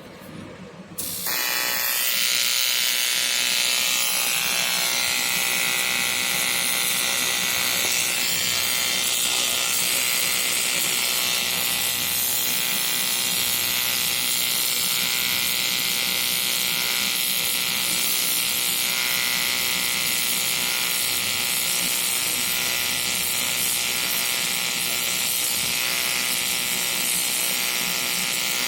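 AC TIG welding arc on aluminium: a steady electric buzz with a hiss on top, striking about a second in and then held without a break.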